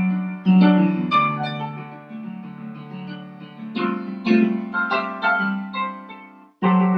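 Instrumental background music: a light melody of short notes that strike and fade. The music cuts out for a moment near the end, then starts again.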